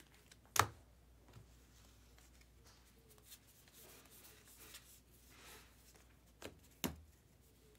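Trading cards being handled and flipped through by hand: faint rustling, with a sharp tap about half a second in and two smaller taps near the end.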